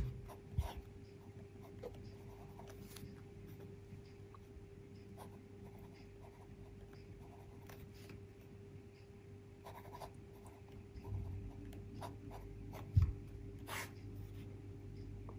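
Pelikan M600 fountain pen's 14-karat gold fine nib writing on lined paper: faint, soft strokes and small ticks of the nib over a low steady hum, with one light knock near the end.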